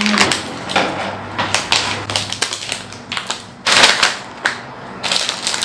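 Plastic packaging bag of a building-block set crinkling and crackling as a child handles and opens it, in irregular bursts, loudest near the end.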